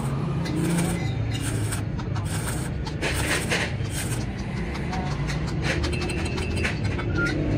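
Stick-welding arc crackling in short spells as an electrode builds up metal on the broken teeth of a helical gear pinion shaft, over a steady low hum.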